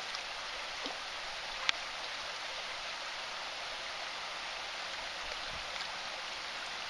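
Shallow creek water running steadily, with one sharp click about two seconds in.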